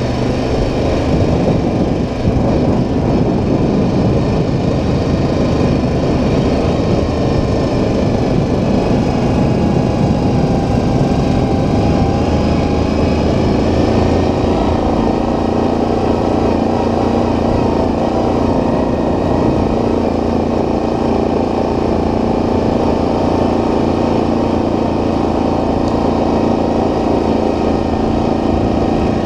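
ATV engine running steadily while the quad is ridden along a gravel trail. The engine note shifts slightly about a second in, then rises and falls gently with the throttle.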